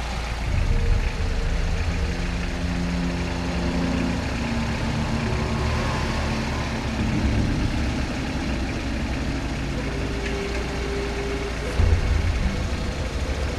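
Minivan engine running as the van drives slowly up and pulls in, a steady low rumble, with sustained low tones layered over it. There is a brief louder swell in the rumble near the end.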